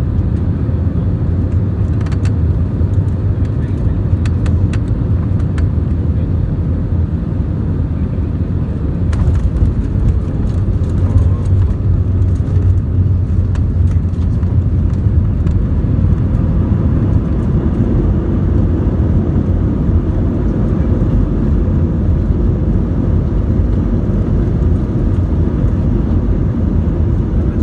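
Inside the cabin of an Airbus A321 landing: a steady low rumble of engine and airflow noise that grows louder about nine seconds in as the jet touches down and rolls out on the runway, with light rattling clicks.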